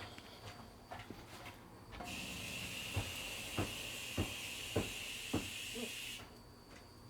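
A steady high hiss starts suddenly about two seconds in and cuts off about four seconds later. Five sharp knocks, evenly spaced a little over half a second apart, sound during it.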